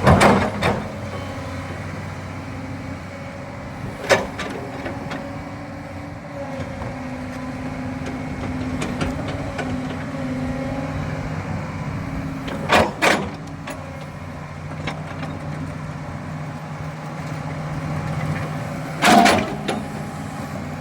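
Doosan 225 hydraulic excavator's diesel engine running steadily, with four sharp loud knocks: one at the start, one about four seconds in, a double knock near the middle, and one near the end.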